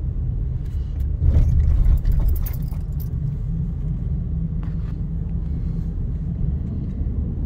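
Inside a moving car: a steady low rumble of tyres and engine, with a louder bump and a burst of rattling and jangling about a second in as the car rolls over railway tracks.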